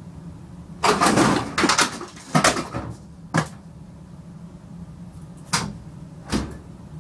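A clothes dryer's door banging open and bottles and containers knocked off the top of the dryer clattering onto the floor, a burst of impacts in the first few seconds. This is followed by two sharp, separate knocks near the end as the door swings back the other way.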